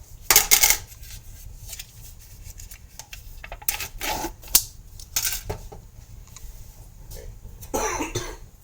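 Clicks, crinkles and rattles of a plastic tub of cream cheese being handled and opened on a kitchen counter, in short separate groups with a longer scrape near the end.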